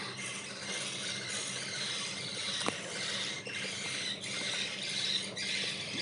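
A cage of budgerigars chattering and warbling continuously in high, busy chirps, with a single sharp click about two and a half seconds in.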